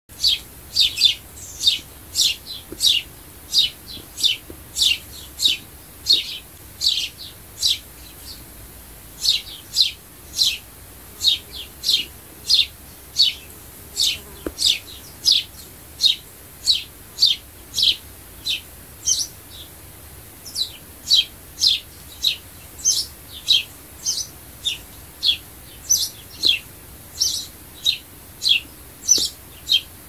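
A sparrow chirping over and over: short, sharp, high cheeps at about two a second, in runs broken by brief pauses.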